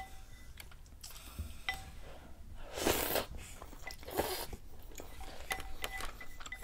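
Two noisy slurps of hot soup from a wooden spoon, about three and four seconds in. Around them, wooden chopsticks and spoon tap the black stoneware bowl in light clicks that ring briefly, several in quick succession near the end.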